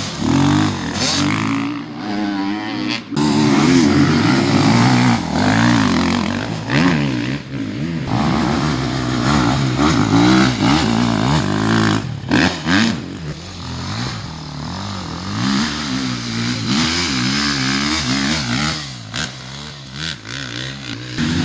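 Enduro dirt bike engines revving hard as the bikes climb a muddy hill, the pitch rising and falling constantly with the throttle. Several bikes are heard in turn, with sudden breaks where one passage gives way to the next.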